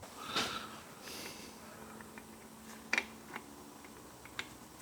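Quiet hands-on workshop handling of small parts: a short hiss near the start, then a few light, sharp clicks and taps, the loudest about three seconds in.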